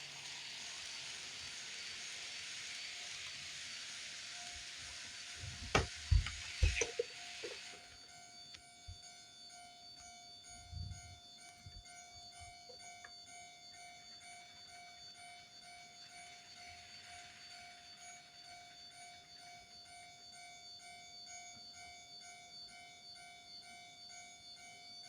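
N-scale model train running with a steady hiss, then a cluster of sharp knocks about six seconds in. After that the hiss stops and a model level crossing's electronic warning bell rings on steadily in even pulses.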